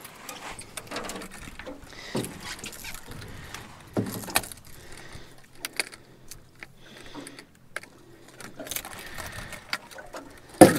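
Fishing gear being handled in a jon boat: scattered clicks, light rattles and small knocks of rod, line and tackle, with one sharp knock near the end as the loudest sound.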